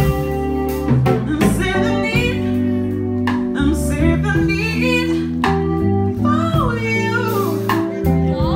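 Female singer singing live over held instrumental chords, with long sliding vocal runs and vibrato in the second half.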